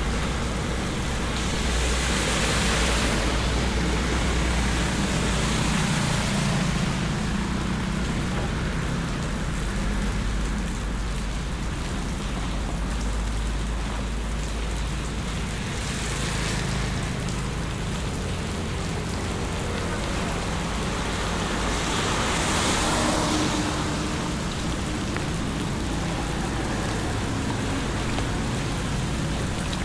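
Steady hiss of heavy rain with a low rumble beneath, swelling louder three times as vehicles pass on the wet road.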